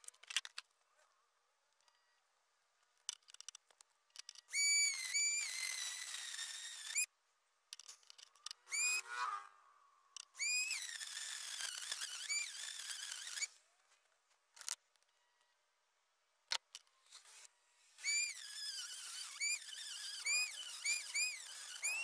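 Dremel rotary tool with a cutoff wheel cutting into the metal crimp collar of a pressure washer hose fitting. The high-pitched whine comes in several bursts, its pitch repeatedly dipping and recovering as the wheel bites. A few light clicks fall in the pauses between cuts.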